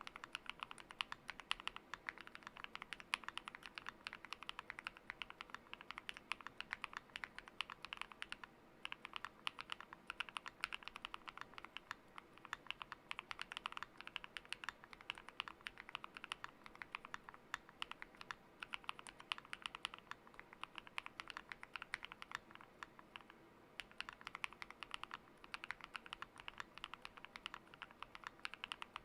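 Mechanical keyboard with lubed KTT Kang White linear switches and PBT keycaps, typed on steadily in a fast, even run of soft clacks, with a couple of brief pauses.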